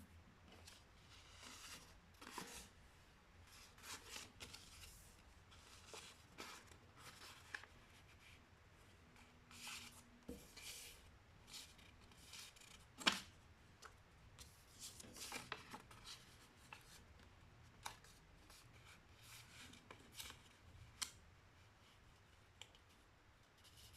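A sheet of printer paper being folded and creased by hand: irregular soft rustles and scrapes as the folds are pressed flat, with one sharper crisp crack of paper about halfway through.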